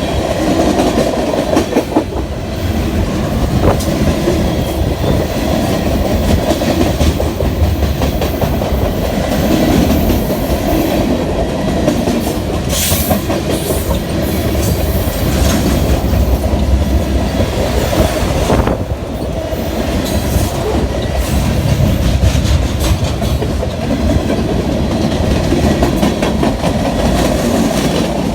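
Freight train passing: steel wheels clickety-clacking over the rails with a steady heavy rumble and a few sharp clanks along the way.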